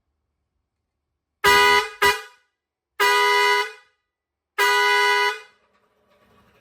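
Pioneairs 217S two-pipe steel-trumpet digital air horn sounding four blasts at one steady pitch. It gives two quick toots about a second and a half in, then two longer blasts of just under a second each.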